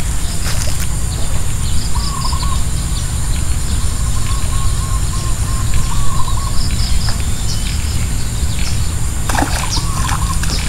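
Birds chirping in short repeated calls over a steady low rumble, with a few faint clicks.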